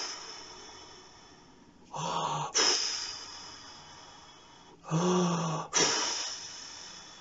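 A man taking slow, deep breaths in and out through the mouth as a warm-up breathing exercise. There are three long, hissing breaths about three seconds apart, each fading away, with a short voiced gasp before the second and third.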